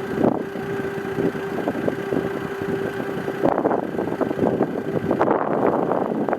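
Steady mechanical hum of a parked van running with its heater on, under gusty wind buffeting the microphone, which grows stronger twice in the second half.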